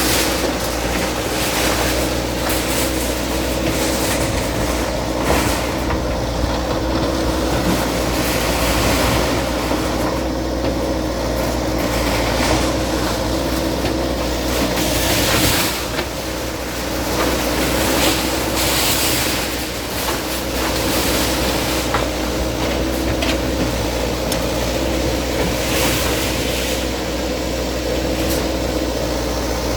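Heavy earthmoving machine's diesel engine running steadily with a constant hum and low rumble, with scattered short knocks and clatter.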